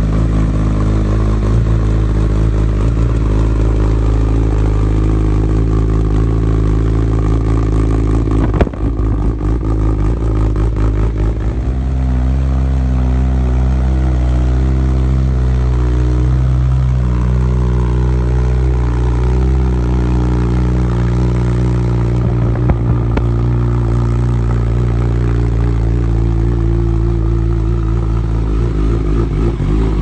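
Honda CBR1000RR SC77's inline-four engine idling steadily through an Akrapovič exhaust system, with one sharp click about nine seconds in.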